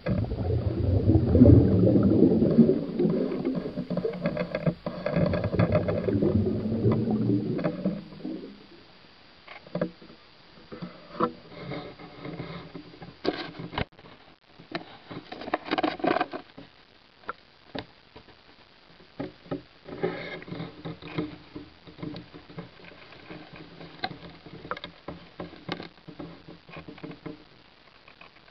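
Water churning loudly against an underwater camera for about eight seconds, then much quieter, with scattered sharp clicks and knocks and faint humming tones now and then.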